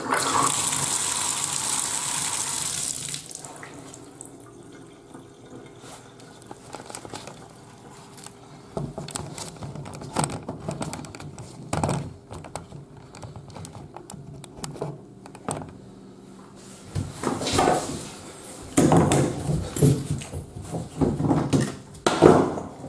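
A hissing rush of liquid into a bathtub for about three seconds, then scattered clicks and rubbing as gloved hands work at the tub drain, louder near the end.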